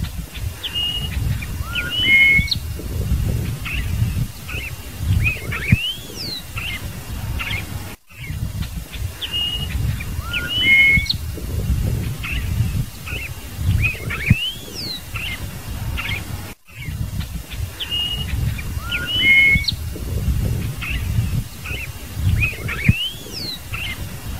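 Scarlet-headed blackbird singing: short phrases of clear whistles and rising slurred notes. The same passage starts over about every eight seconds after a brief break, over a steady low rumble.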